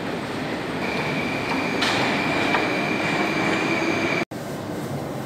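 Moscow Metro station din: a steady rumble with a high, steady squeal coming in about a second in and stopping abruptly near the end, where the sound cuts out for an instant.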